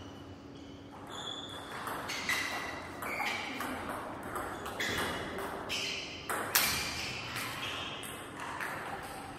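Table tennis rally: the ball clicking sharply off the paddles and the table, about two hits a second. The loudest hit comes a little past halfway, and the hits thin out toward the end as the point finishes.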